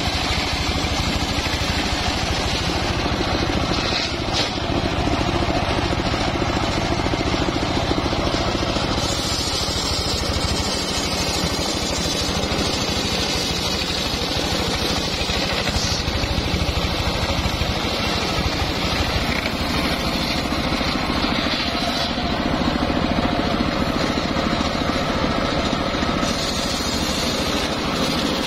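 Homemade circular sawmill running steadily, its blade ripping a teak log lengthwise into slabs.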